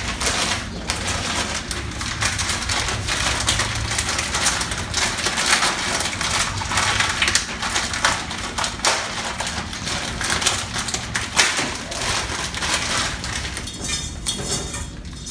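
A plastic packet of dried rice noodles crinkling and crackling as it is torn open and handled, with the dry noodles rustling inside, in a steady run of irregular crackles.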